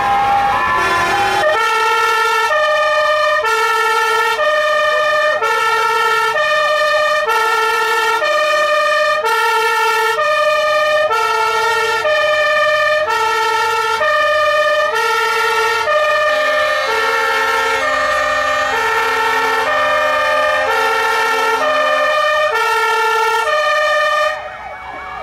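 Fire engine's two-tone siren, loudly alternating between a low and a high note about every 0.7 seconds, with other sirens wailing up and down more faintly underneath. It cuts off shortly before the end.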